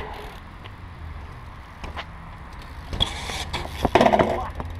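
BMX bike rolling on concrete, then a loud clatter about four seconds in as the rider bails and the bike drops onto the concrete.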